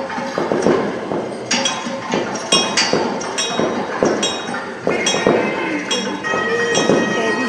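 Temple bell clanging over and over, struck about twice a second at an uneven pace, each stroke ringing on into the next; it is said to ring on its own. A steady high tone joins about six seconds in.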